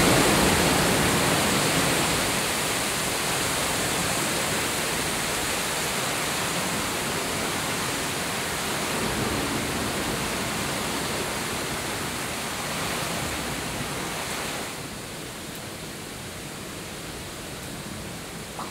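Sea waves breaking and washing over rocks just below the cave mouth, a steady rushing noise. About three quarters of the way through it drops suddenly to a quieter, softer rush.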